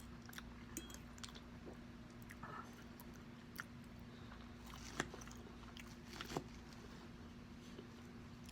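A person chewing food close to the microphone, with scattered short, wet mouth clicks, the loudest two about five and six seconds in. A faint steady hum sits underneath.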